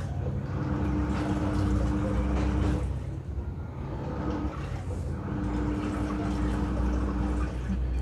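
Samsung Wobble Technology top-loading washing machine agitating a tub of water with no clothes in it during its wash cycle: the water swishes and churns throughout, and the drive motor hums in two stretches of about two seconds each, near the start and again after the middle.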